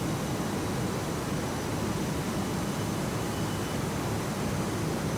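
Steady car-factory floor noise: an even hiss and hum from the assembly-line machinery, with faint high whines and no distinct knocks.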